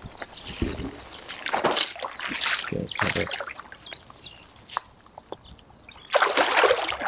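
Hooked carp thrashing at the surface close to the bank, sloshing and splashing in irregular bursts, with a louder burst of splashing about six seconds in.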